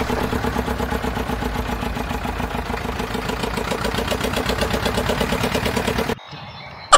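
Tractor engine running at a steady idle with an even pulse, cutting off abruptly about six seconds in.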